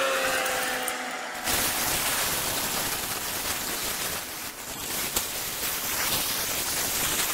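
Meat sizzling on the hot grate of a gas grill, a steady hiss that jumps up suddenly about a second and a half in as the meat is laid down. Before that there is a fainter hiss with a few falling whistle-like tones, and there is a sharp click about five seconds in.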